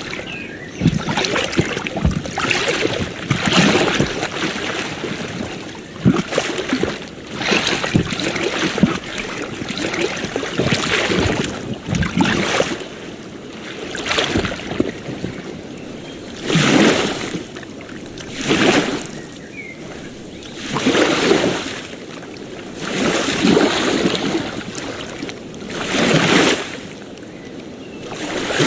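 Small ocean waves washing and splashing on the shore. The first half is busy with quick splashes; from about halfway the wash swells and fades in a steady rhythm, roughly every two seconds.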